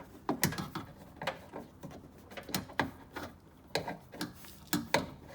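Irregular clicks and knocks of a replacement door lock actuator and its linkage being handled and fitted inside a car door.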